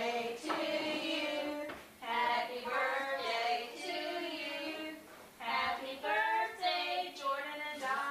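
Women's and children's voices singing together in high, sustained notes, with a brief pause about five seconds in.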